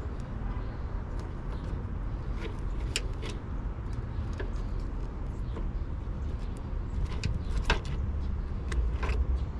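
Scattered light clicks and taps of a test light and its lead being worked on car wiring, over a steady low rumble.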